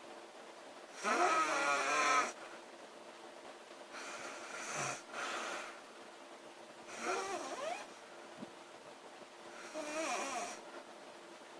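A woman snoring in her sleep: four snores, about three seconds apart, each with a wavering, gliding pitch. The first is the loudest and longest, at about a second.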